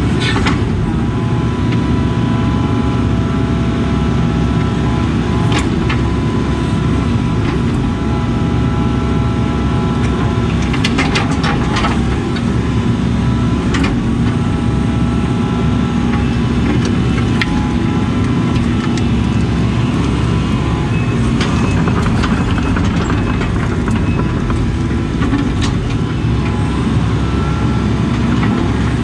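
Case CX80 excavator's diesel engine running steadily under digging load, heard from inside the cab, with a high hydraulic whine that comes and goes as the boom and bucket move. Scattered knocks and clatter from the bucket working the dirt, a cluster of them about eleven seconds in.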